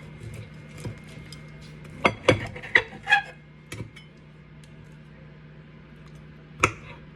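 Kitchen clatter: dishes, glass and utensils clinking and knocking, several times in quick succession about two to three seconds in and once more near the end, over a low steady hum.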